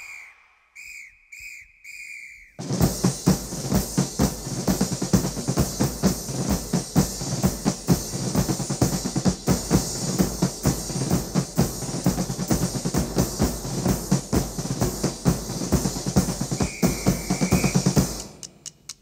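A recorded music track for a dance routine: a few short, high, clipped tones with gaps between them, then, about two and a half seconds in, a fast drum-kit solo begins, with rapid snare rolls and bass-drum hits. The solo cuts off abruptly near the end.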